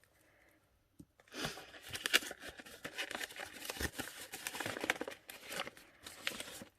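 Paper wrapping rustling and crinkling as an item is unwrapped by hand, with some tearing sounds, starting about a second and a half in and running in quick, irregular crackles.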